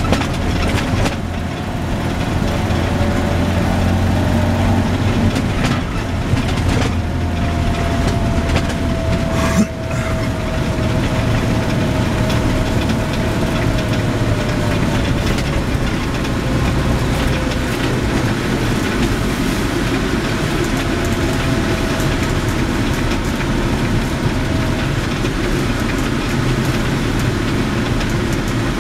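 Car engine running and road noise heard from inside the cabin while driving slowly, the engine note drifting gently down in pitch. There are a few brief knocks, one about a second in and others around seven and ten seconds.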